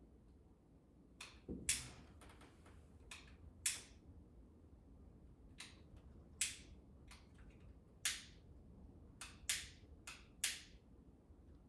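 A handheld lighter clicked again and again to light candles: about a dozen sharp clicks at irregular intervals, some in quick pairs.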